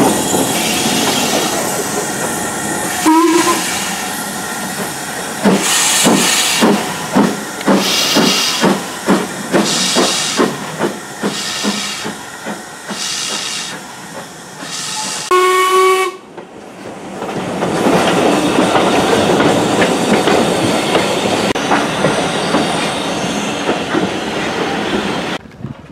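Ivatt Class 2MT steam locomotive 46447 working alongside: a short whistle toot about three seconds in, then a run of regular exhaust beats with quicker clicking under them, and a longer whistle blast a little after the middle. A steady rushing noise follows until it cuts off near the end.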